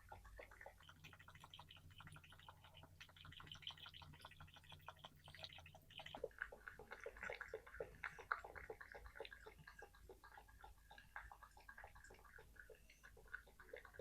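Cat lapping water with its tongue: a quick, steady run of soft wet laps and clicks.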